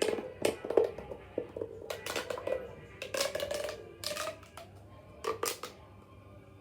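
Plastic pop tube being stretched and squashed, its ribbed corrugations crackling and popping in about five short bursts.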